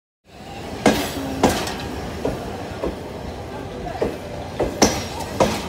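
Passenger train carriages rolling past, steel wheels clacking over rail joints: two pairs of sharp clacks about four seconds apart, with lighter knocks between, over a steady rumble.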